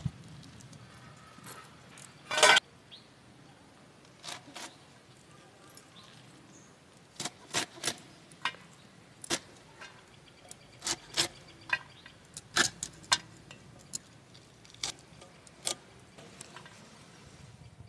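Fresh spinach being cut by hand with a small knife over a steel plate: short, sharp snips and clicks at an irregular pace as the stems are cut through, with one louder, longer clatter about two and a half seconds in.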